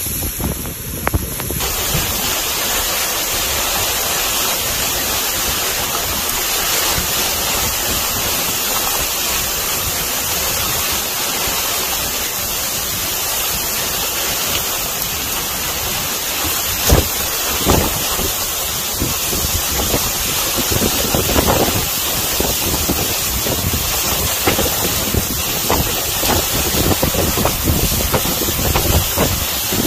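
Storm wind rushing steadily and buffeting the microphone, with a few sharper gusts hitting it past the middle.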